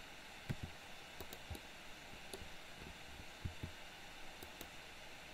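Faint, scattered clicks of a computer mouse and keyboard over a steady low microphone hiss.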